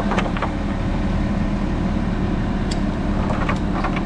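Engine of a rented lifting machine running steadily, with a few light clinks near the start and again around three seconds in.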